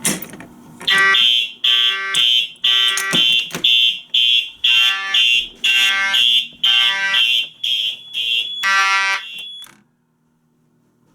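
A fire alarm pull station snaps with a click, then the system's fire alarm horns sound loudly in a pulsing march-time pattern, about two to three blasts a second. The horns cut off suddenly near the end, leaving only a faint hum.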